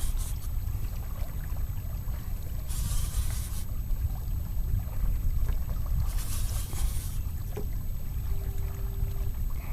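Wind rumbling on the microphone aboard a small boat on open water, with a hiss of water washing against the hull about every three to four seconds.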